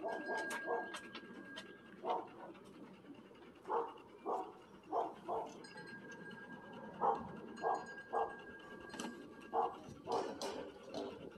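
Standard poodles giving short barks, about a dozen, singly and in quick pairs.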